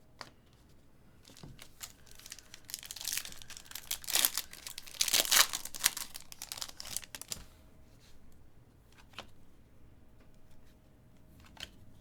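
Trading card packaging being torn open, with crinkling and tearing of the wrapper for a few seconds, loudest in the middle, and a few light clicks of card handling before and after.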